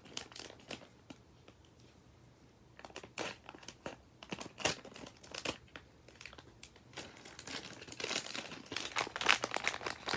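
Toy packaging being handled: crinkling and rustling in irregular spurts, with a lull about a second in and denser crinkling over the last three seconds.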